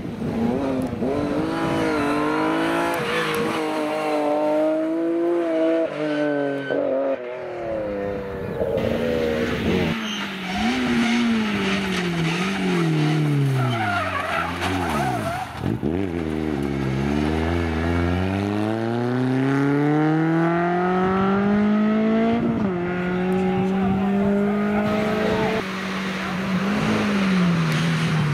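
Rally cars at full throttle on a special stage, one after another. Each engine revs up and drops in pitch at every gear change. Midway the revs fall very low as a car brakes for a tight turn, then climb steadily again as it accelerates away.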